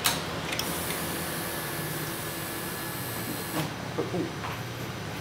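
Yamaha MT-09 inline three-cylinder engine running steadily with its cam chain tensioner backed off, giving a mechanical chatter from the slack cam chain. A sharp click comes at the start, and a high hiss sits over the engine from about half a second in to about three and a half seconds.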